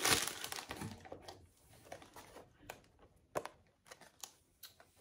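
Crinkling of perfume packaging being unwrapped for about the first second, then a handful of light clicks and taps as the box and bottle are handled.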